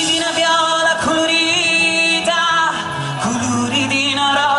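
Live folk band playing Calabrian folk music: long held melody notes with a slight waver over a bass line that changes every second or so.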